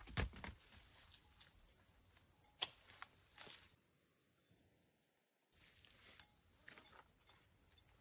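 Faint, steady, high-pitched insect chirring, with a few soft scattered knocks in the first half.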